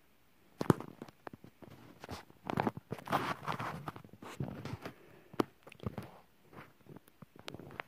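Rustling, scattered clicks and knocks of a phone being handled and swung around, with the sharpest knocks about a second in and again about five seconds in.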